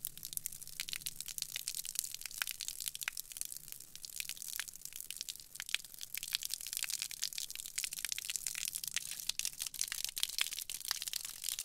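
Fuel spilling from a car's filler onto the pavement while a pump nozzle is in it, splashing as a dense, irregular crackle.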